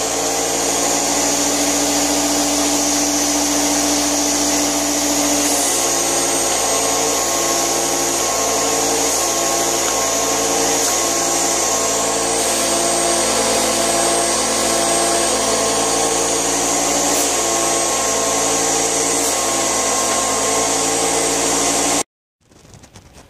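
Air compressor running with a loud hiss of compressed air being forced through a car's headlight washer hoses to push out the nozzles. About five seconds in, its hum shifts into a regular pulsing. It cuts off suddenly near the end.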